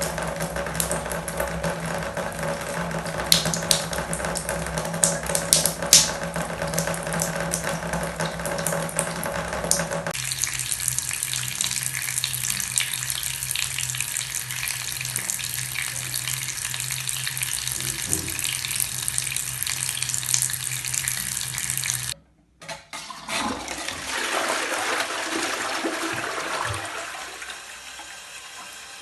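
Running water from a tap splashing into a sink, in several takes. The first take has a steady hum under the water and a few sharp splashes. The sound changes abruptly about ten seconds in, cuts out briefly a little after twenty seconds, then returns and fades down near the end.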